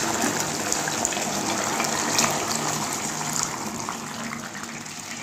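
Water poured into a wok of chili chicken sauce: a steady gushing pour that fades toward the end.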